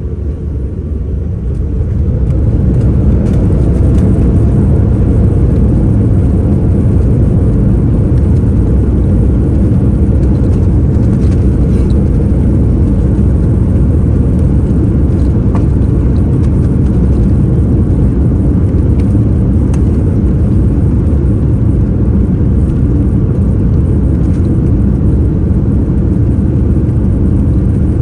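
Airliner jet engines spooling up to takeoff power, rising over the first two seconds, then a loud steady rumble through the takeoff roll.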